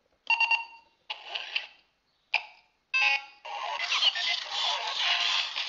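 Silverlit Program-A-Bot toy robot making a few short electronic beeps and sound effects, then, about three and a half seconds in, starting to play dance music through its small built-in speaker as it dances.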